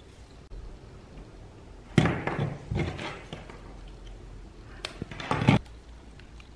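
A few knocks and clattering handling sounds: a sharp knock about two seconds in with a short clatter after it, then another cluster of knocks near the end.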